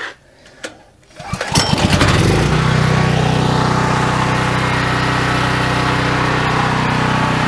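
CAT portable generator's gasoline engine starting: a couple of clicks, a brief crank a little over a second in, then it catches and settles into a steady run.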